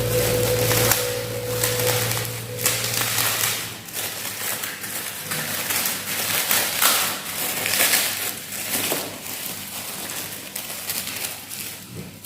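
Close-up chewing and crunching of gado-gado with crispy krupuk crackers, many irregular crunches one after another. A steady hum fades out in the first few seconds.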